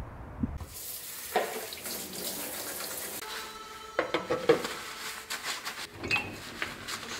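Water running from a kitchen tap into a stainless steel sink while a mug is washed with a soapy scrubber, with a few sharp knocks of the mug and dishes against the sink. It begins with a brief low wind rumble.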